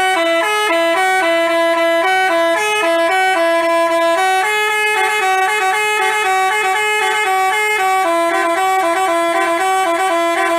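Telolet basuri bus horn, a multi-trumpet musical air horn, playing a tune of changing notes at a steady, loud level.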